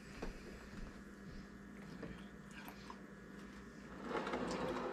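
Faint chewing of milk-soaked cereal, with a few light clicks of a metal spoon against a ceramic bowl and a short, louder noisy sound near the end.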